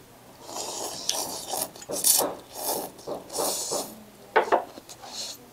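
A person slurping a mouthful of noodles in a run of rasping sucks, followed by a couple of sharp mouth clicks about four and a half seconds in.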